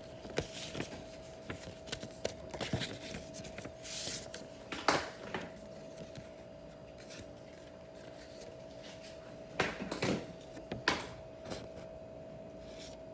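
Gift packaging and a card being handled: scattered rustles and sharp clicks, loudest about five seconds in and again around ten to eleven seconds, over a faint steady high-pitched tone.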